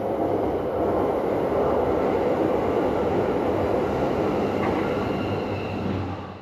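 A train running past on its rails: a loud, steady rush of wheel and rail noise that swells in the first second and then holds. Picked up by a GoPro HERO 13 Black's built-in microphone behind its windscreen, with no editing.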